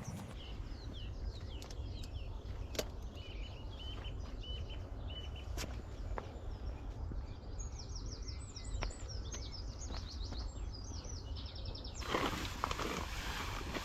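Small birds chirping and singing in short repeated phrases over a steady low rumble, with a few sharp clicks. About twelve seconds in, a louder rustling starts.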